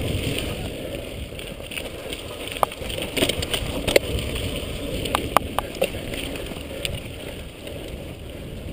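Mountain bike riding fast down a forest dirt trail: wind rumbling on the microphone over the tyre noise on the dirt, with sharp clicks and rattles from the bike over bumps, several of them between about two and six seconds in.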